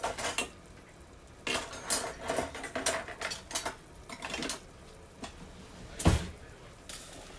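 Kitchen utensils clattering and scraping against a pot and dishes in a run of quick clicks, then one heavier knock about six seconds in.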